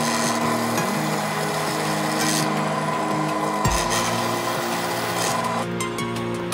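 Benchtop drill press running with a steady motor hum while its bit bores into a wooden plank, with a scraping, rasping cut through the wood. There is one sharp knock about three and a half seconds in.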